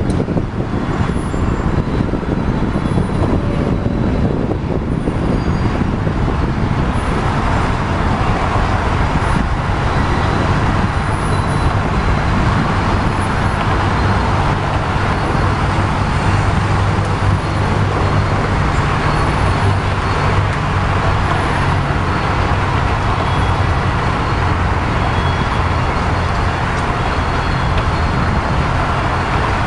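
Crane engine running steadily while it lifts a heavy beam, over constant traffic rumble; a low engine hum comes up stronger a little before halfway and holds its pitch.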